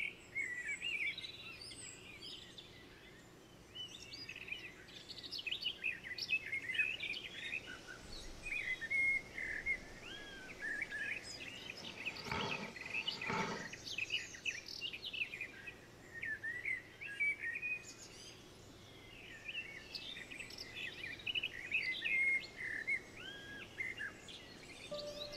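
Several songbirds singing and chirping, many short calls and trills overlapping throughout. About halfway through come two brief noises.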